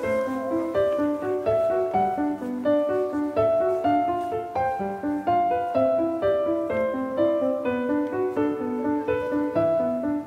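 Background piano music: a steady run of single notes at an even pace.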